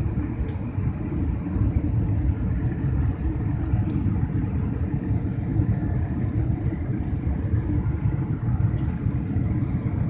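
Steady low rumble of a jet airliner's engines and airflow as heard inside the passenger cabin in flight.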